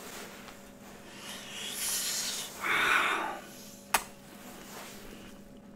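A man's breathy, wheezing exhalations close to a microphone, the strongest about three seconds in, then a single sharp tap about four seconds in, over a faint steady hum.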